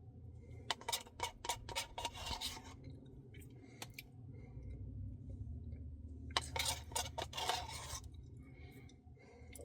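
A spoon scraping and scooping through a Dairy Queen Blizzard in its cup. There are two runs of quick scratchy strokes, the first about a second in and the second past the middle, over a low steady hum.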